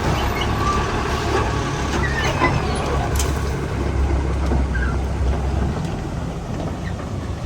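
Heavy diesel engine running steadily with a low drone; the deep part of the drone drops away about six seconds in.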